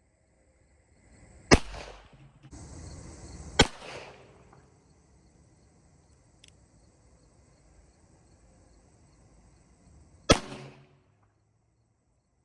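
.38 Special revolver firing 158-grain full-metal-jacket rounds: three shots, the second about two seconds after the first and the third about seven seconds later. A rushing noise fills the gap between the first two shots.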